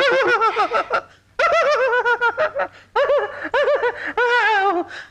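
A man laughing loudly in several bursts of rapid, high-pitched ha-ha-ha.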